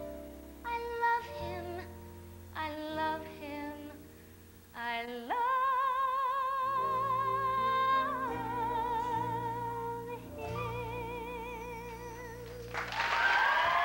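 A woman's soprano voice singing the last phrases of a musical-theatre song over low, sustained accompaniment, with vibrato on the held notes. A long, very high note is held from about five to eight seconds in, followed by lower held notes. Audience applause breaks out near the end.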